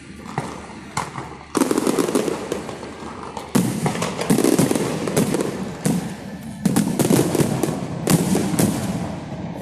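Fireworks display: aerial shells bursting in rapid volleys of loud bangs. Sparse at first, the bangs turn dense about a second and a half in and surge again several times.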